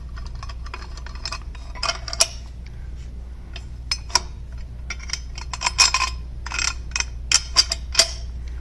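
Stainless steel bolts clinking and tapping against aluminum hitch parts as they are dropped through lined-up holes: irregular sharp metallic clinks, busiest in the second half, over a steady low hum.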